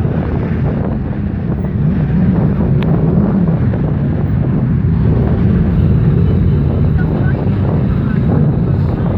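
Wind buffeting the microphone, a loud, steady low rumble, on a boat under way at sea.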